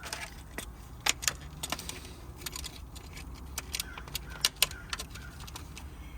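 Small metal tools and parts clinking and clicking as they are handled, a dozen or so sharp irregular clinks, the loudest about a second in and about four and a half seconds in, over a steady low hum.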